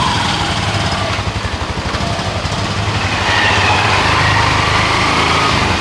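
Motorcycle engine running close by, loud and steady, with a quick even firing beat.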